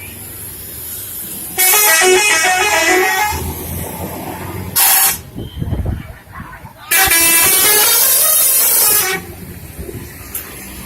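Telolet bus horn, a multi-tone musical air horn, playing a stepping tune in two long blasts of about two seconds each, with a short blast between them. A bus engine runs underneath between the blasts.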